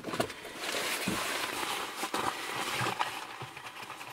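Rustling of a Berghaus jacket's synthetic fabric, with a few irregular soft knocks, as someone inside a car rummages at their coat for car keys.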